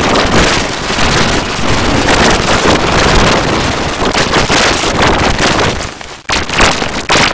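Cartoon soundtrack heavily distorted by audio effects into a loud, harsh wash of noise across all pitches, with no clear voice or tune left in it. It dips briefly about six seconds in.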